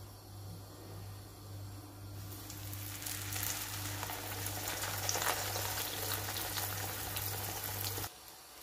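A flat piece of pişi dough sizzling as it is laid into hot oil in a frying pan. The sizzle starts about two seconds in and carries on evenly, over a steady low hum; both cut off just before the end.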